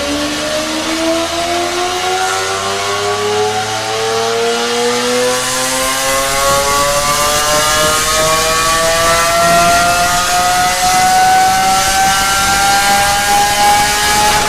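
Supercar engine accelerating in one long, unbroken pull, its pitch climbing slowly and steadily with no gear change.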